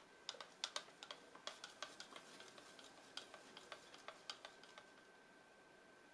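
Wooden craft stick stirring two-component epoxy resin in a clear plastic cup, clicking and scraping against the cup's wall in a quick, irregular run of light ticks, several a second, that stops about five seconds in.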